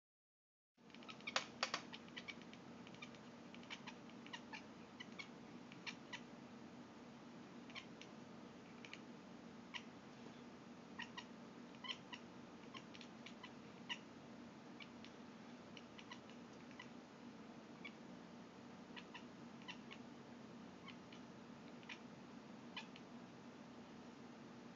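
A cat making short, clipped chirping clicks at irregular intervals, with a cluster of louder ones about a second and a half in, over a faint steady hum.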